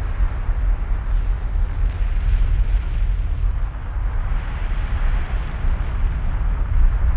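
Kilauea volcano erupting, heard as a steady deep rumble of the lava fountain with a rough hiss above it.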